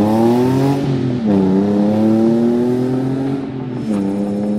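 Nissan 370Z's 3.7-litre V6 through a Flashark catback exhaust, accelerating away and shifting up twice, about a second in and near the end. Each shift drops the engine note, which then climbs again.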